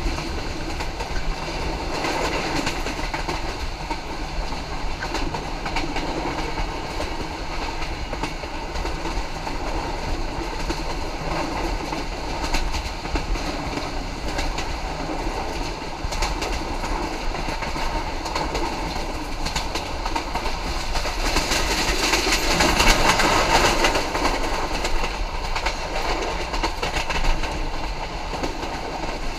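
Passenger train running along the track, its wheels clicking over the rail joints in a steady clickety-clack, with a louder, hissier rush about two-thirds of the way through.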